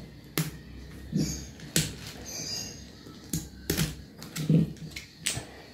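Handling noise from a coiled 8-metre pressure-washer hose being lifted and unwound: a handful of sharp clicks and knocks with soft rustling between them.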